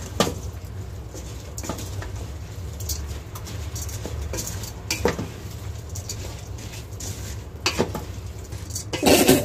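Wooden spatula stirring and scraping rice, lentils and chopped vegetables in a pot, knocking against the pot every second or two. The knocks come in a louder cluster near the end.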